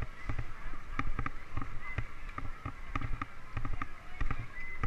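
Irregular rattling knocks and bumps from a bicycle-mounted camera jolting over a rough dirt path, over a low rumble, with crowd voices in the background.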